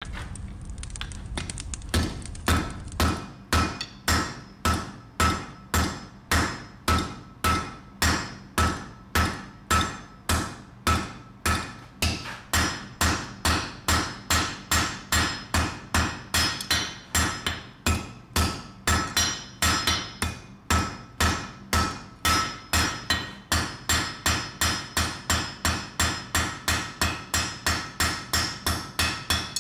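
Blacksmith's hammer forging metal on an anvil in a steady rhythm, each blow with a short metallic ring. The blows come about two a second and quicken to about three a second in the second half. They begin about two seconds in, after a low rumble.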